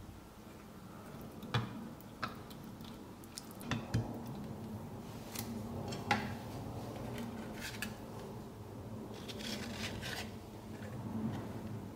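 A ladle scooping creamy mushroom sauce from a frying pan and spreading it in a glass baking dish: a few sharp clinks and knocks in the first half, then soft, wet scraping. Near the end, lasagna sheets are laid on the sauce.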